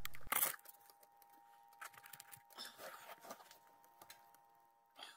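A knock about half a second in, then faint scattered clicks and rustles of hands handling the front brake caliper and its parts around the new rotor.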